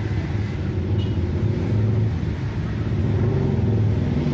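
Low, steady rumble of motor vehicle engines, slowly growing louder.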